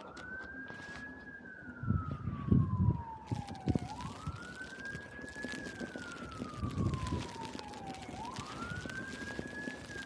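An emergency vehicle's siren wailing: each cycle rises quickly, then glides slowly down, repeating about every four seconds. Over it come irregular low crunching thumps of footsteps in snow, loudest about two to three seconds in.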